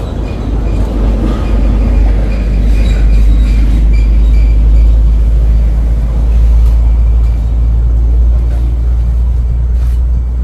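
Loud, steady low rumble that swells about two seconds in, with a few faint knocks near the end.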